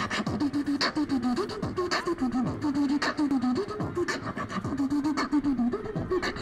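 Beatboxing into a handheld microphone: sharp snare-like mouth clicks keep a beat while a hummed tone moves up and down in steps as a melody line over it.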